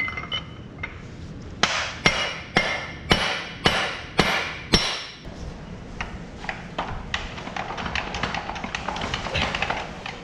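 Hammer blows on a steel punch driving the long hex shaft out of a disc mower's stacked drive pods: about seven sharp, ringing metal strikes, roughly two a second, ending about halfway through. Lighter metal clinks and scraping of parts being handled follow.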